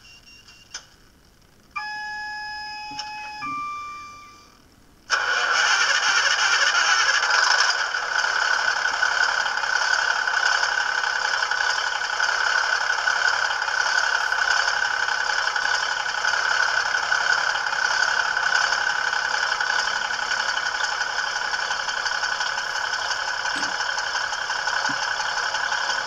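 DCC sound decoder in a Bachmann OO gauge class 150 diesel multiple unit model playing its cold-start sequence. A couple of seconds of stepped electronic tones come first. About five seconds in, the diesel engine sound starts abruptly and settles into a steady idle, thin and without bass through the model's small speaker.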